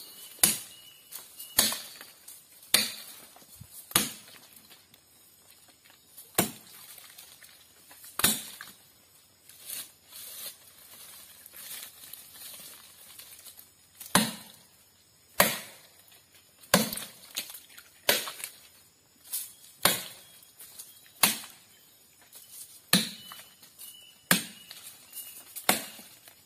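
Sago palm trunk being chopped by hand with sharp blows, about one a second, with a break of a few seconds midway.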